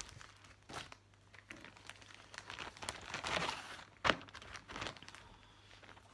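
Crinkling and rustling of a clear plastic sleeve holding a cross-stitch chart as it is handled, with a single sharp tap about four seconds in.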